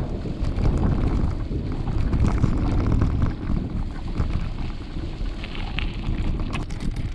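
Wind buffeting a bike-mounted camera's microphone while a mountain bike rolls over a gravel dirt road: a steady low rumble with scattered small rattles and clicks.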